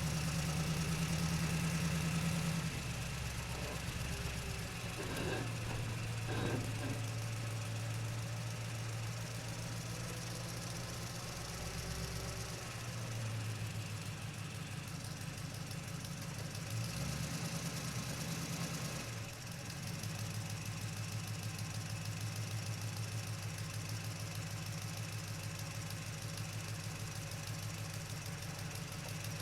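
Truck engine running while the truck drives, a steady low drone whose pitch steps up or down several times as the engine speed changes.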